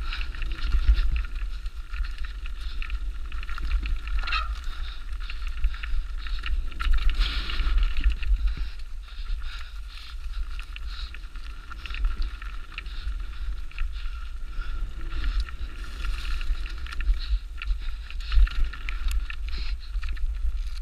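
Specialized Demo 8 downhill mountain bike running fast over rough dirt trail: tyre noise with constant rattling and clattering from the chain and frame. A steady low wind rumble sits on the microphone.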